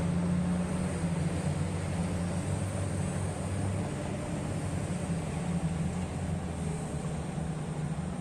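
Heavy mining equipment's diesel engine running steadily with a deep, even drone.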